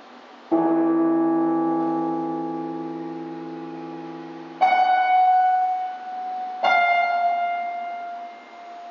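Slow, sparse piano music: a chord struck about half a second in and left to fade, then two single notes a couple of seconds apart, each left to ring.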